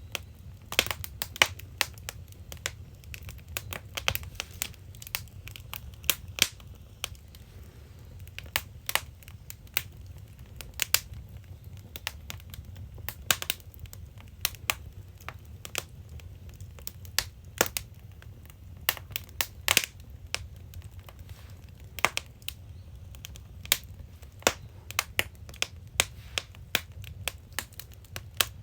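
Firewood crackling and popping as it burns in the firebox (agungi) of a traditional Korean ondol-heated house, the pops coming irregularly, several a second, over a low steady rumble.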